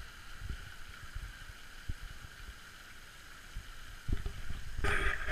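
Outdoor pond ambience: a steady watery hiss, with wind buffeting the microphone in low thumps. A louder noisy burst comes in near the end.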